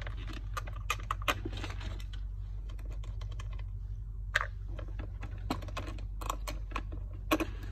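Irregular sharp metallic clicks and clinks of a hand wrench and cable terminals as the main positive and negative battery cables are taken off a golf cart's battery pack.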